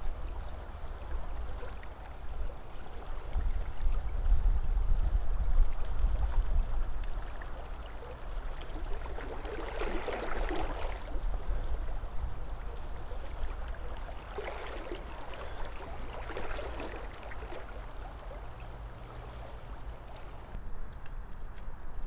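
Shallow river running over a riffle: a steady rush of water with a low rumble underneath, swelling louder around ten seconds in and again about fifteen to seventeen seconds in.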